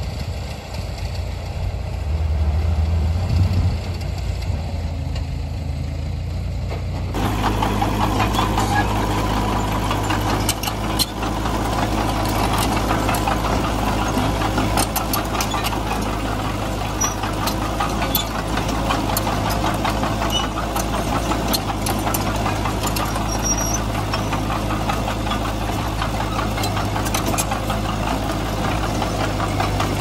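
Komatsu D20P bulldozer's diesel engine running low and steady, then about seven seconds in the sound jumps to the engine working harder, with frequent sharp clanks and knocks over it.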